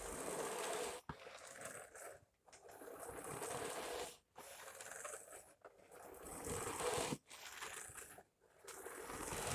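A person making a breathy whooshing noise with the mouth, pretending to be a running vacuum cleaner. It comes in about seven stretches of one to two seconds, with short pauses for breath between them.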